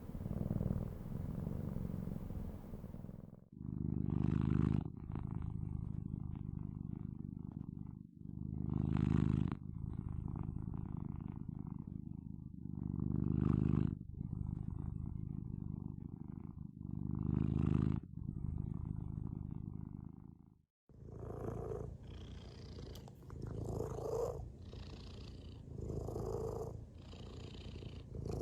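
Domestic cats purring, several recordings joined with cuts about three seconds in and near twenty-one seconds in. The middle purr swells and eases every four to five seconds; the last one pulses faster, about every two seconds.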